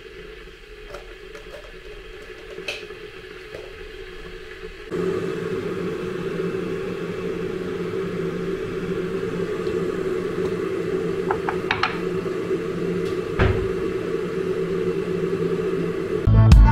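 A kitchen appliance starts humming steadily about five seconds in, a low, even mechanical drone, with a few light clicks and knocks over it.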